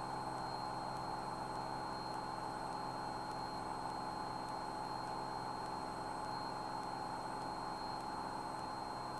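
Cessna 205's six-cylinder piston engine and propeller droning steadily at takeoff power during the initial climb, before the power and prop are pulled back. It sounds faint and even, with no change in pitch.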